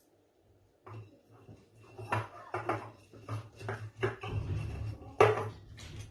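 Salt-stuffed lemons being handled and packed on a kitchen counter: a string of irregular knocks and clatters, the loudest about five seconds in, over a steady low hum.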